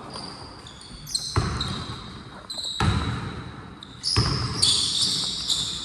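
Basketball bouncing on a gym floor, three heavy bounces about a second and a half apart, with sneakers squeaking sharply on the floor between them.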